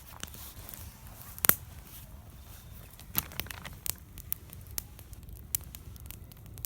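Wood fire burning and crackling, with irregular sharp pops, the loudest about one and a half seconds in.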